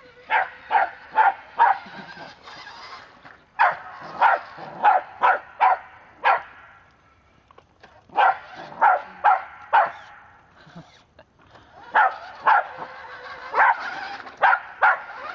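West Highland white terrier barking at a moving remote-control toy truck: four bursts of rapid, sharp barks, about four to eight in each, with pauses of a second or two between them.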